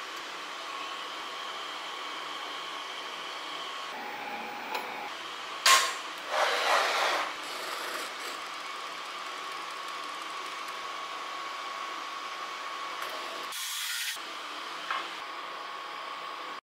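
CNC router (Woodpecker DP1212) sounding a steady machine hum with a faint high whine. A sharp click about six seconds in is the loudest moment, with a brief louder whirr just after it.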